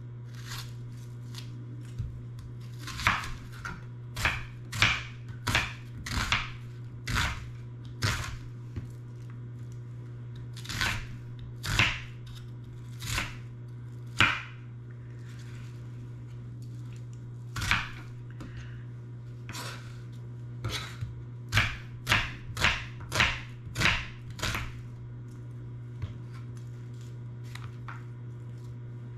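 Knife chopping onion on a cutting board, in irregular single strokes with pauses, then a quicker run of about two strokes a second near the end.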